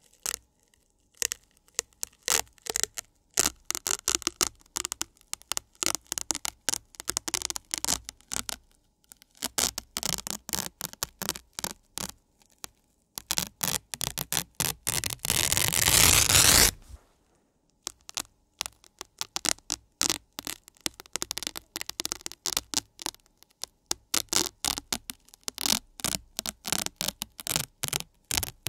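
Velcro hook-and-loop tape rasping against a Velcro pad, fibres catching and tearing loose in many short crackling strokes. About halfway through comes one longer continuous tear of some three seconds, the loudest part.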